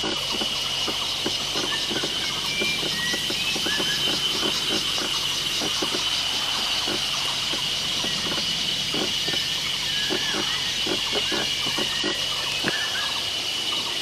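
Forest ambience: a steady high-pitched insect drone, with many short, irregular chirps and clicks over it.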